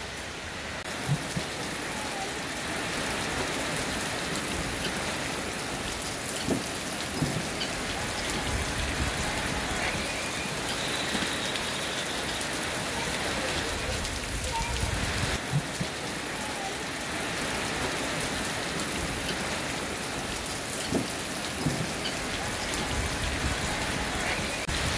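Steady rain falling on garden foliage, with occasional louder drops splashing close by.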